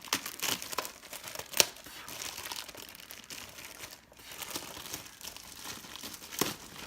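Plastic packaging crinkling and rustling as it is handled, with a few sharp clicks, the loudest about a second and a half in.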